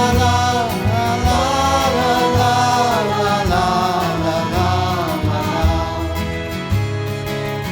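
A song: a voice sings a wordless 'la la' melody over backing instruments with a steady beat. The voice drops out about five and a half seconds in, leaving only the instruments.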